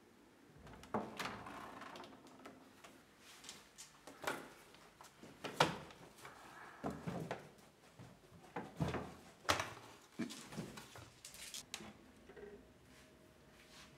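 Old wooden chest opened, then framed pictures shifted about inside it: wooden frames knocking and scraping against one another in a string of irregular handling sounds, with a few sharper knocks.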